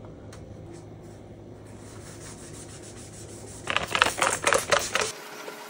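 Tissue wiping over a floor mat. About three and a half seconds in, a hand spray bottle of disinfectant is squirted in a quick run of loud hissing sprays.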